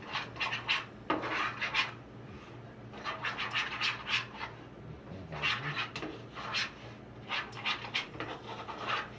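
Scratching and rubbing noises in four short bursts of quick strokes, each lasting a second or two with short gaps between.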